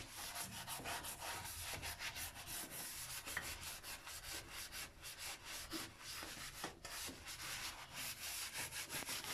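A soapy kitchen sponge scrubbing glazed tiles and grout, quick repeated back-and-forth rubbing strokes.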